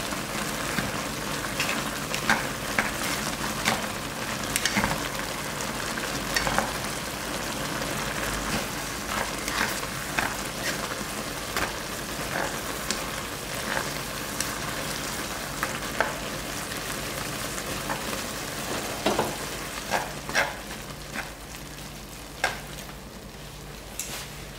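Chapagetti noodles and black-bean sauce sizzling in a nonstick frying pan while wooden chopsticks stir and toss them, with frequent sharp clacks of the chopsticks against the pan. The sizzle dies down near the end.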